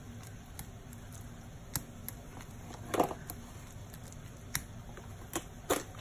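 Metal fork stirring shredded cheese into egg in a glass bowl, with scattered sharp clinks of the fork against the glass; the loudest is about three seconds in.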